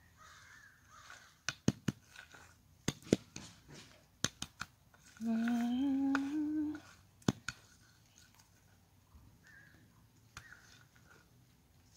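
A few sharp clicks and light scraping as a small wooden board levels loose topsoil. About five seconds in, a woman hums a short tune that rises in steps, for about a second and a half.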